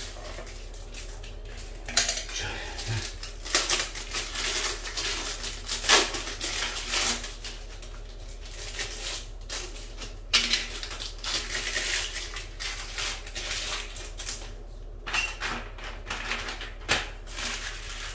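Utility knife cutting and scraping a thin wooden strip on a tiled floor: irregular runs of scratches, cracks and clicks in several bursts.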